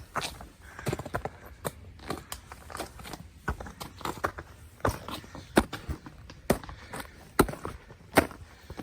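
Footsteps of a hiker walking on a snowy mountain trail: sharp, regular steps at a steady walking pace, a little more than one a second.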